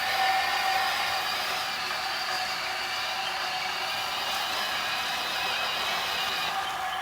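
Electric motors and plastic gearboxes of a Huina RC excavator whining steadily as it works, a high drone that thins out slightly near the end.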